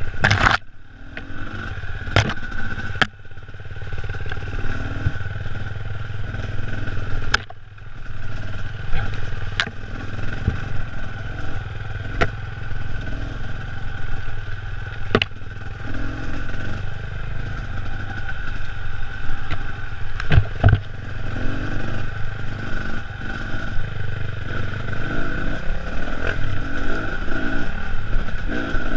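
Enduro dirt bike's engine running on a rough forest trail, the throttle easing off and opening again a couple of times. Sharp knocks and clatter come now and then as the bike rides over the rutted ground.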